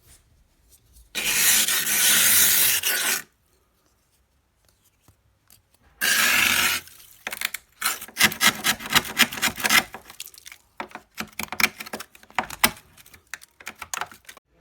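Rubbing and scraping: two long rasping rubs, then a run of short scrapes and clicks.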